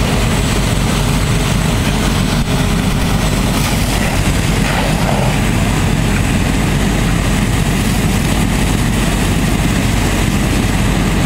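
Fire engine's diesel engine running steadily at the scene while its pump feeds the hoses: a loud, even, heavy low rumble.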